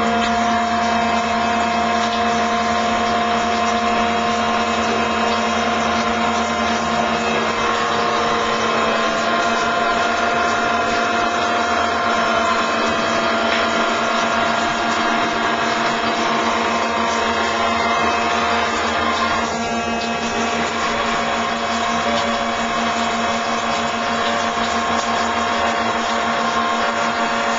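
Radio-controlled model tug boat's motors running steadily in a bathtub of water: a continuous mechanical whine of several steady tones over a churning hiss.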